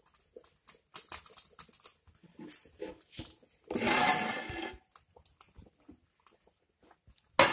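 Shallots, dried red chillies and curry leaves frying in oil in a small tempering pan, crackling with scattered small pops. There is a brief louder sound about four seconds in, and a sharp clatter near the end as the lid comes off the clay curry pot.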